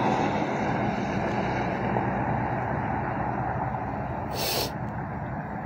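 Steady rumble of a vehicle engine running, with the background noise of traffic. About four and a half seconds in there is a short, sharp hiss.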